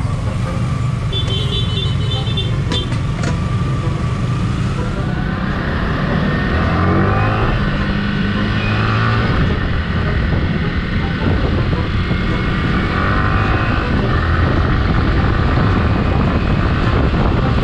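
Wind buffeting the microphone over the Yamaha R15's single-cylinder engine while riding on the road, the engine rising in pitch as it accelerates about a third of the way in.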